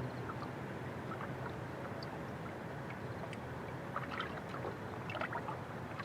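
Water lapping against the hull of a small fishing boat, with a steady rush of wind and water and a cluster of light splashes and taps a few seconds in.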